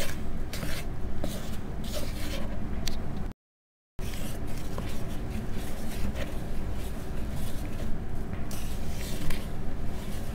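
A wooden spoon stirs flour into creamed butter dough in a plastic bowl, giving a run of scraping, rustling strokes over a steady low hum. The sound cuts out completely for about half a second a third of the way in.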